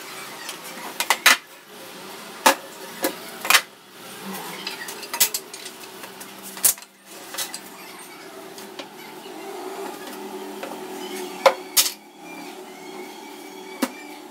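Wooden boards and hand tools knocking and clattering as they are picked up, set down and fitted together: about ten sharp, separate knocks scattered through, with a close pair near the start and another around eleven and a half seconds in.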